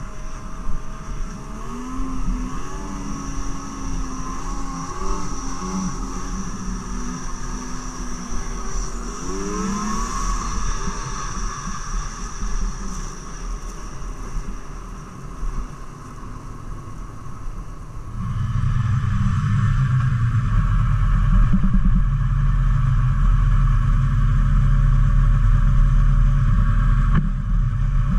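Snowmobile engine running on the move, its pitch rising and falling with the throttle; about 18 seconds in it turns into a louder, steady low drone.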